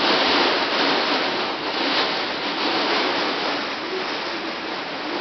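Torrential thunderstorm rain driven by strong wind: a loud, steady rush that surges in gusts, strongest in the first couple of seconds and then easing a little.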